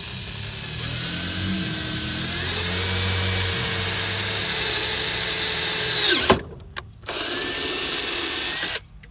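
Cordless drill boring a hole in a lawn mower's rear wheel housing. The motor whine climbs in pitch as it speeds up and then holds steady. It cuts off about six seconds in, and after a short pause with a click it runs again for about two seconds before stopping.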